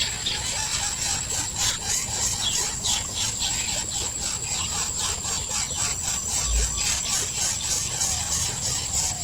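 Bird nestlings begging with rapid, high-pitched squeaking chirps, over a steady high insect buzz.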